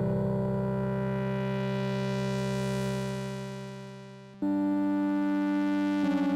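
Novation V-Station software synthesizer playing an atmospheric keyboard patch: a held chord that fades away about three seconds in, then a new chord starts abruptly just past four seconds, its notes shifting near the end.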